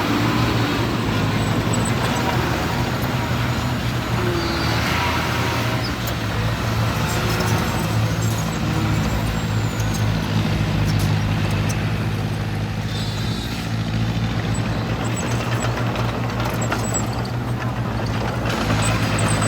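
Large diesel engine of heavy construction machinery running steadily at an even pitch.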